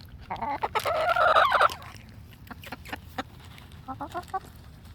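Juvenile chicken giving a loud, drawn-out call lasting about a second and a half, followed a couple of seconds later by a few short clucks near the end, with some light taps in between.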